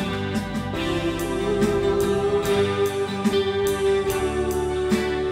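Live country gospel band playing an instrumental break with no singing: guitars and keyboard over a steady drum beat with cymbal strokes about twice a second, and a long lead note held from about a second in.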